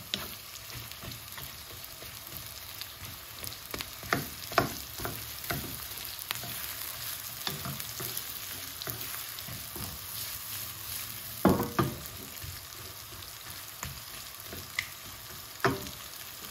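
Thickly sliced onions sizzling in hot oil in a deep frying pan while a wooden spatula stirs them, scraping and tapping against the pan. The taps come irregularly over a steady hiss, with a louder knock past the middle and another near the end.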